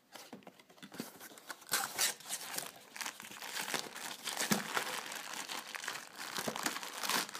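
Paper and plastic packaging of a boxed figure crinkling and rustling as it is unpacked, with adhesive tape being torn off; an irregular crackle that goes on throughout.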